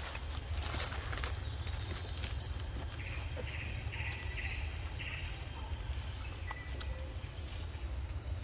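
Steady high-pitched insect drone over a low rumble, with a few short high chirps from a small animal or bird in the middle.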